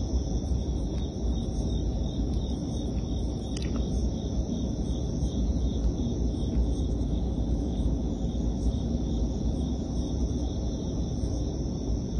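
Crickets chirring steadily in a high, even drone, over a steady low rumble.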